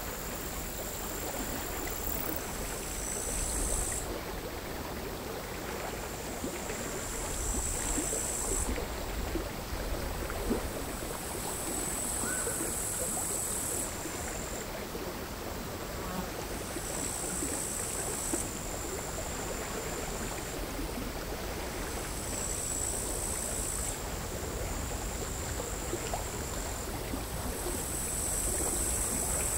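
Crickets singing in high-pitched bouts of about two seconds, repeating every four to five seconds, over the quiet, irregular lapping of calm sea water against the shore.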